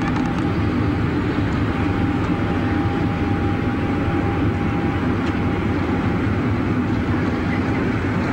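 Sealink passenger ferry's diesel engines running steadily while it lies alongside the pier, a low, even drone with a faint steady whine above it.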